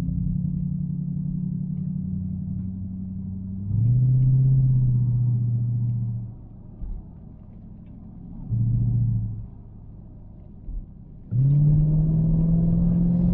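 Car engine driving uphill in a low gear, its note swelling under throttle in three pulls and easing off in between, with the last long pull starting about 11 seconds in.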